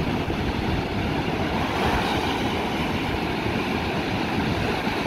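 Ocean surf breaking and washing up the beach, a steady rush of noise.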